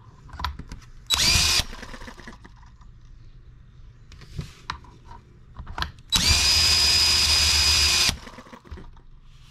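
Cordless drill spinning over a small M18 model engine through a drill-start attachment: a short half-second spin about a second in, then a longer two-second run near the end, each whining up to speed. The engine is being cranked for a start while flooded with fuel. Small clicks and taps come between the spins.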